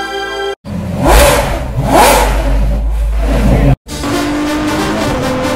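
Car engine revving twice, each rev rising in pitch, loud and cut off abruptly after about three seconds. Music begins right after the cut, near the end.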